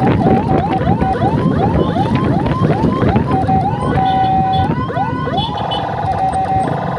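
Scooter-mounted electronic siren sounding fast rising whoops, about three a second, then holding a steady tone and switching to other siren tones in the second half as the control box is worked. Wind and road rush underneath.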